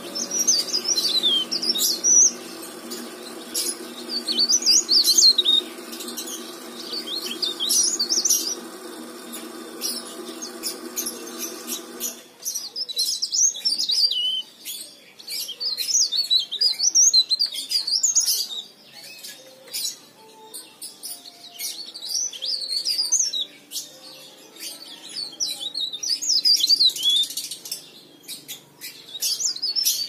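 Cikrak daun (leaf warbler) singing: short, rapid, high-pitched warbling phrases repeated every two to three seconds. A steady low hum underneath cuts off about twelve seconds in.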